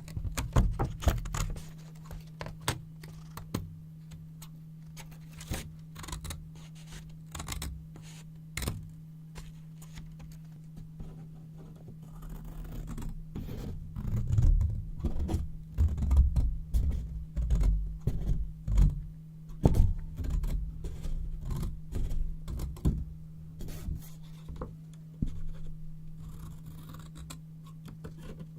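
Scissors cutting yellow paper: a run of irregular crisp snips with paper rustling and crinkling, busier and louder through the middle stretch. A steady low hum runs underneath.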